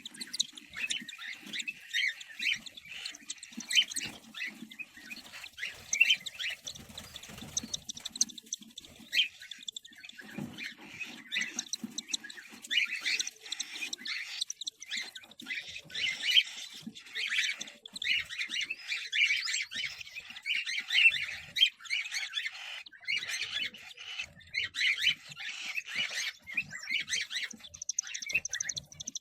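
Cockatiels in a nest box giving a dense stream of rapid, short, high chirps and squawks, easing off briefly about a third of the way through.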